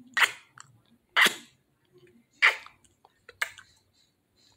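Wet mouth smacks made close to the microphone, four in a row about a second apart.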